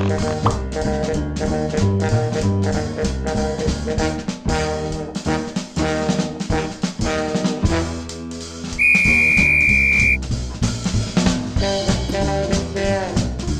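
Jazzy cartoon background music with brass and a drum kit. About nine seconds in, a loud steady high tone cuts in over it for about a second.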